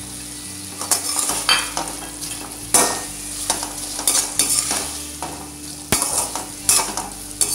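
Perforated steel ladle scraping and knocking against a steel kadai as potato cubes are stirred through a thick sauce, in irregular strokes about once a second, over a steady sizzle.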